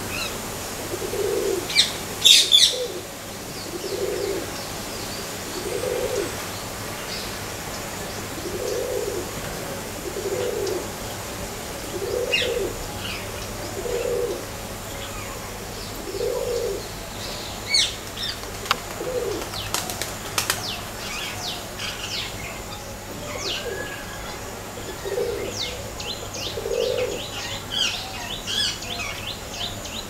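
Birds calling outdoors: a low coo repeated about every two seconds, with a gap in the middle, over many short, high chirps of small birds. A loud, brief burst of sharp sounds comes about two seconds in.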